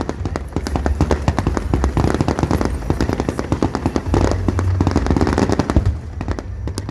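Aerial fireworks going off: a dense, rapid crackle of many small bursts over deep booming.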